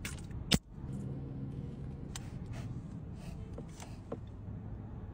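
Steady low hum of a car engine idling, heard inside the cabin, with one sharp click about half a second in and a few faint crackles of food wrapping paper.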